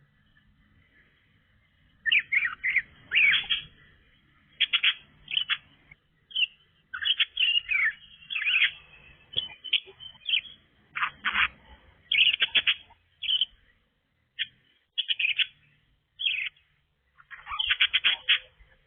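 Budgerigar chattering in short spurts of chirps and warbles, starting about two seconds in and going on with brief pauses. It is heard through a CCTV camera's microphone.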